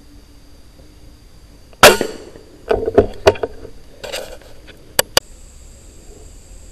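A single loud shot from a scoped air rifle about two seconds in. It is followed by a scatter of knocks and rustles, then two quick sharp clicks about five seconds in.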